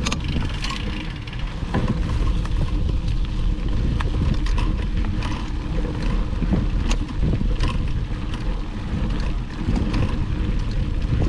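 Mountain bike riding over a dirt trail: a steady wind rumble on the microphone, with scattered sharp clicks and rattles from the bike jolting over bumps.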